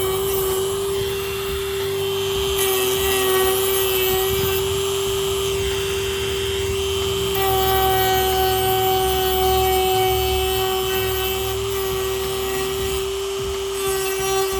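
Handheld power tool running at a steady high speed with an unchanging whine, cutting and carving an opening into a carbon-fibre hood for a hood latch.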